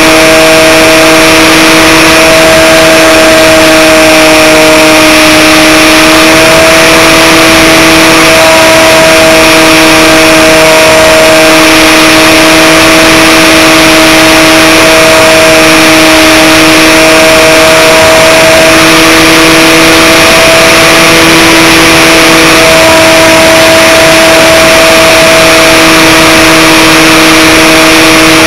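Electric motor and propeller of an Aerobird Extreme RC plane running steadily in flight, picked up by the camera mounted on the plane: a loud, constant drone whose pitch wavers only slightly, over heavy wind rush.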